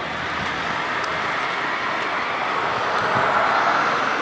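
Airbus A350-1000's Rolls-Royce Trent XWB turbofans at taxi power: a steady jet rush with a faint high whine, getting louder toward the end as the aircraft rolls closer.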